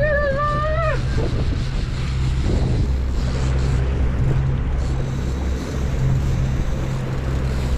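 A 300-hp outboard motor running steadily as the boat trolls, under wind on the microphone and rushing water from the wake. A drawn-out shout in the first second.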